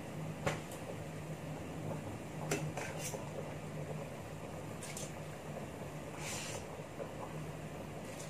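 A ladle knocking a few times against the metal pots as chicken broth is scooped from the stockpot and poured into the rice pot, with a short splash of liquid about six seconds in. A steady low hum runs underneath.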